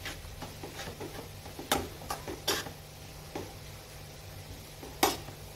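A spoon stirring instant noodles in a kadhai, scraping and clinking against the pan about five times, over a low steady hum.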